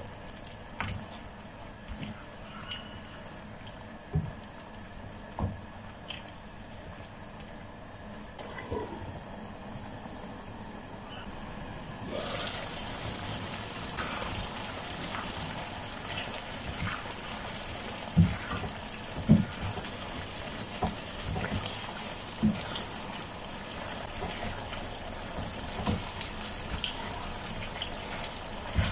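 Wooden spatula stirring chicken and peppers in a nonstick pan of simmering tomato sauce, with soft knocks and scrapes every second or two over the bubbling of the sauce. About twelve seconds in, a steady hiss comes up and stays.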